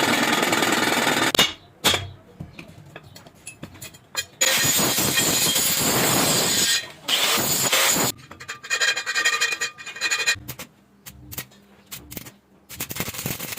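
Harsh metalworking noise on a truck drive shaft, a rasping hiss like grinding or welding. It comes in loud stretches that cut off abruptly, with scattered knocks and scraping between them.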